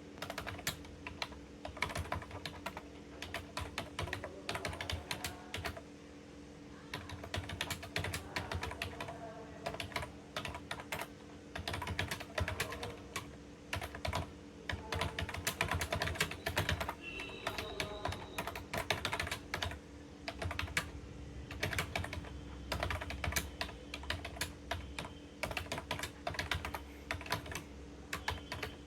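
Fast typing on a computer keyboard: runs of quick keystroke clicks broken by brief pauses, over a steady low hum.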